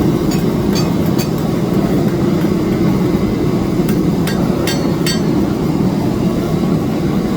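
Steady low roar of a forge heating a knife blade, with ringing hammer blows on steel: three in the first second and a quicker run of four about four to five seconds in.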